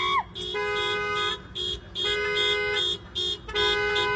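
A horn blasting a rhythmic run of long and short toots, long–short–long–short–long, with two steady pitches sounding together. The first sound at the start slides up in pitch.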